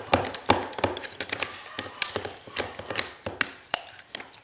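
A utensil stirring thick relaxer cream in a small plastic tub, clicking and tapping irregularly against the tub's sides several times a second.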